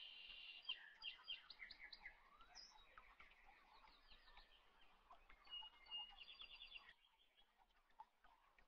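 Faint birds chirping, with many short chirps and quick trills, easing off near the end.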